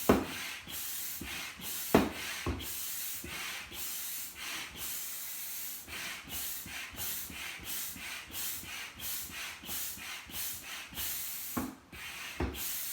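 Hand pump inflating a Body Glove Porter inflatable kayak/paddle board, each stroke a rushing hiss of air at about two to three a second, with a few sharp knocks of the pump. The board is firming up as the pressure starts to build.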